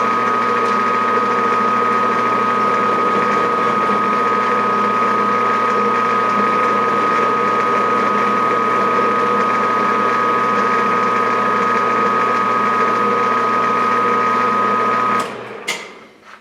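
Metal lathe running at about 200 RPM with a steady whine from its drive while facing a part held in a collet chuck. It shuts off about a second before the end and the sound dies away.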